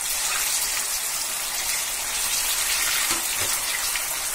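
Potato-stuffed bread rolls deep-frying in hot oil in a kadai: a steady hissing sizzle of oil bubbling around the freshly dropped-in rolls.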